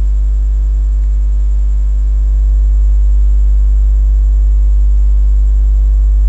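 Loud, steady electrical mains hum in the recording, strongest in the deep bass with a stack of fainter overtones above it. It swells slightly a little over two seconds in.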